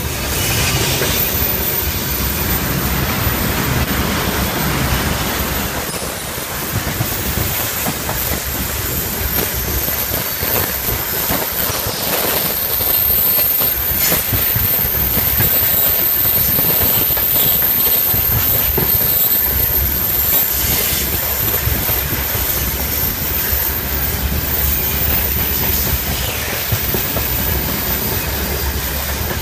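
Freight train of open gondola wagons rolling past close by: a steady rumble and hiss of steel wheels on the rails, with occasional sharp knocks from the wheels passing rail joints.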